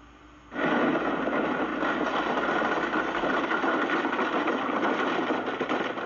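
Horse-drawn wooden cart rattling and clattering along a rough dirt road. The dense clatter starts suddenly about half a second in and then goes on steadily.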